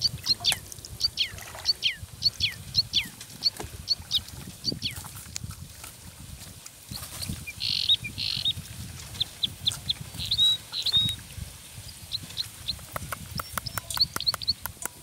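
Birds calling in quick, short chirps that sweep downward in pitch, repeated about twice a second at first and more sparsely later. Under them a fire of dry palm fronds crackles, with sharp pops that come thick and fast near the end.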